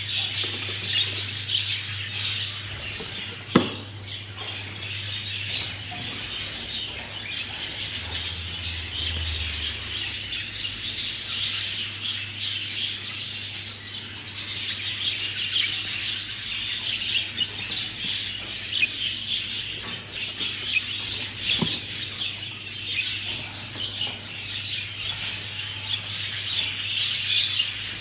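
A group of budgerigars chattering and chirping without pause. A sharp click cuts through about three and a half seconds in, the loudest moment, and a fainter one comes about twenty-one seconds in, over a steady low hum.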